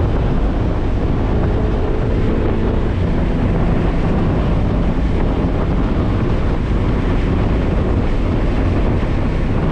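Mazda Miata's four-cylinder engine under acceleration at about 70 to 90 mph, heard from inside the cabin under loud, steady wind and road noise.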